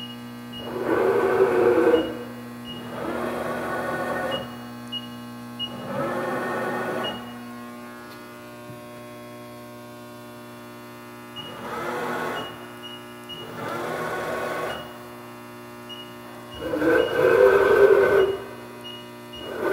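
ProtoTrak TRM CNC bed mill's axis servo drives jogging the table: six separate runs of motor whine with ball-screw noise, each lasting about one to two seconds, over a steady electrical hum.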